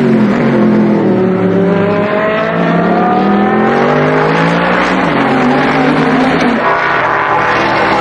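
GT race cars accelerating past, with several engine notes overlapping. Their pitch keeps climbing and then dropping back as they change gear.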